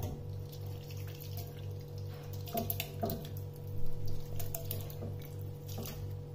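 Cooked beef chunks and broth poured from a stainless steel pressure cooker into a steel pot: liquid splashing, with pieces of meat dropping in and metal clinks against the pot rims. The loudest knock comes a little before four seconds in.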